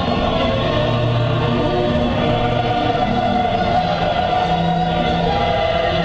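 Background choral music: a choir singing long, held chords.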